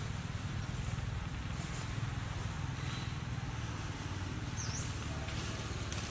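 Steady outdoor ambience: a low, continuous rumble under a soft hiss, with a short, high, dipping chirp about four and a half seconds in.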